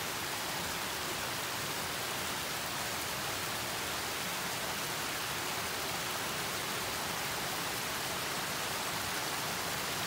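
Steady, even hiss of falling water.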